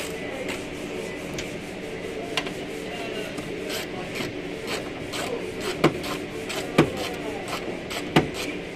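Socket wrench working a bolt inside a car door: irregular light ratcheting clicks and metal rubbing, with three sharper metallic clicks in the second half.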